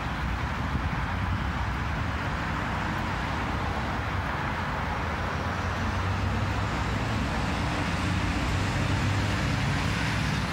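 Steady road-traffic rumble, growing a little louder in the second half.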